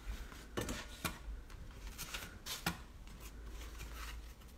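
Faint taps, clicks and rustles of art supplies being handled on a wooden table: a few sharp knocks about half a second and one second in, and a cluster of them between about two and three seconds in.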